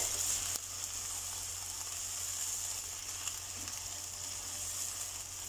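Chicken pieces sizzling in hot oil in a non-stick kadai as they are stirred with a silicone spatula, a steady high hiss. A light click sounds about half a second in.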